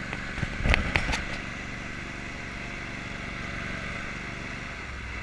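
Small off-road motorbike engine running steadily, with a few sharp knocks about a second in.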